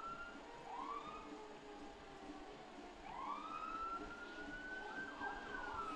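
Emergency vehicle siren giving short rising whoops, then about three seconds in a longer wail that climbs, holds for a couple of seconds and drops away near the end.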